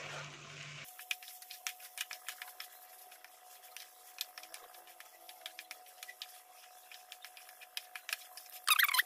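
Metal spatula clicking and scraping against a steel kadai while cooked rice is stirred and mixed, many quick irregular ticks over a faint steady tone.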